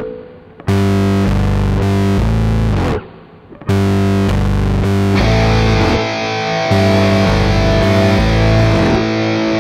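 Rock music driven by heavy distorted electric guitar chords. It breaks off briefly about three seconds in, then comes back and fills out about five seconds in.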